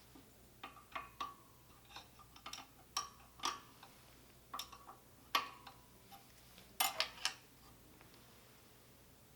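Irregular sharp metallic clicks and taps, some with a brief ring, as fusee sticks work the fusee pulley and catch against the case of a QX series pump while its return spring is being extended.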